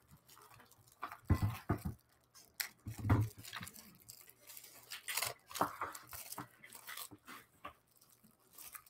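Plastic jewelry packaging rustling and crinkling as it is handled and opened, with scattered small clicks. Two louder dull thumps come about a second and a half and three seconds in.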